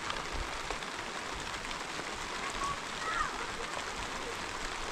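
Steady rain falling, with scattered drop ticks.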